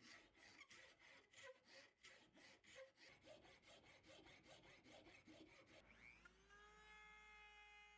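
A flat hand file rasping quickly back and forth across a wooden block held in a vise, about five strokes a second. About six seconds in, a rotary tool fitted with a sanding drum spins up with a rising whine and settles into a steady high whir.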